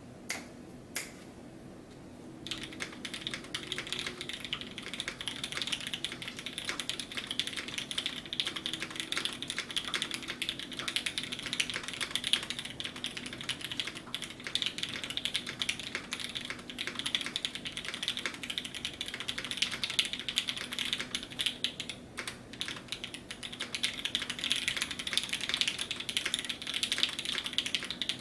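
Typing on a Keycult No. 1/60 custom mechanical keyboard with a full polycarbonate plate, filmed and lubed Milky Top Tealio linear switches and GMK keycaps. A few single key presses, then fast continuous typing from about two seconds in, with a brief pause about three quarters of the way through.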